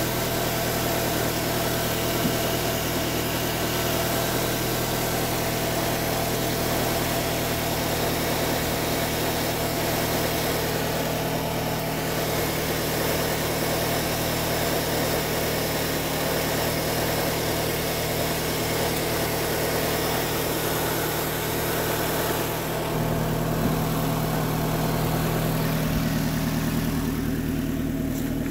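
A 2006 Nissan Altima's 2.5-litre four-cylinder engine idling steadily, in good running order. About three-quarters of the way through, its note shifts lower and fuller and gets slightly louder.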